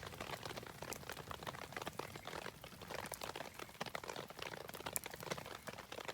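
Rain pattering steadily, mixed with the crackle of a wood campfire, with a few sharper pops from the fire.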